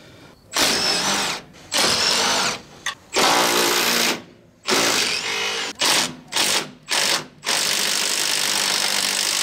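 Red cordless Milwaukee power tool spinning nuts off firewall studs, run in about eight short bursts with a longer run of about two seconds at the end. The last run is on a nut that won't come off because its stud is spinning with it.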